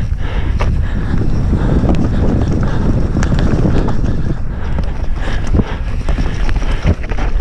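Mountain bike descending a dirt forest trail at speed: wind buffeting the camera microphone over the rumble of knobby tyres on loose ground, with frequent knocks and rattles from the bike over bumps and roots.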